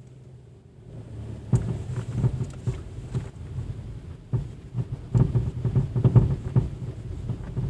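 Chrysler 200 driving over uneven road with a low rumble and repeated irregular knocks from the rear suspension. The knocking comes from the rear right strut, whose nut on the shock absorber rod has worked loose.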